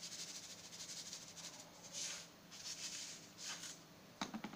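Salt sprinkled by hand onto rice stuffing in a glass bowl: a faint, dry hiss of falling grains in a few short bursts. Near the end comes a quick run of sharp clicks.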